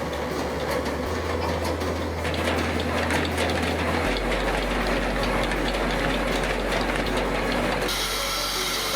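Wood-processing machinery running with a steady clatter of clicks and rattles, with a low background music bass line beneath it.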